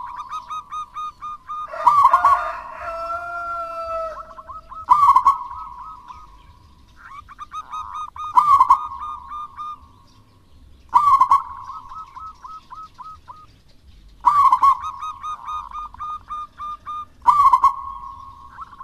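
Zebra dove (perkutut) cooing in repeated phrases about every three seconds, each a loud opening note running into a fading string of quick rolling coos. A second, lower call overlaps briefly about two seconds in.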